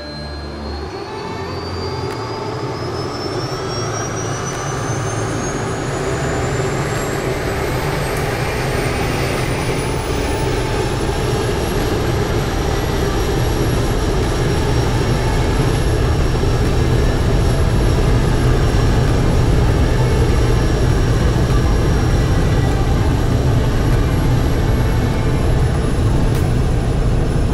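Air Tractor AT-402 crop duster's PT6 turboprop engine heard from the cockpit, spooling up. Its turbine whine rises in pitch over about ten seconds and then holds steady, over a low propeller drone that grows steadily louder.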